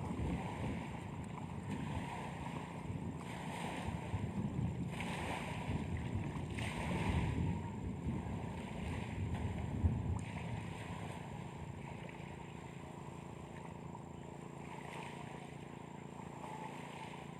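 Outdoor wind and water noise: small waves washing in softly every second or two, under a faint steady low hum.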